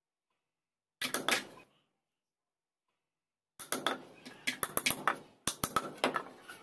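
Hammers driving small nails into plywood speaker-box panels: a short run of sharp blows about a second in, then rapid, overlapping hammering from two hammers from about three and a half seconds on.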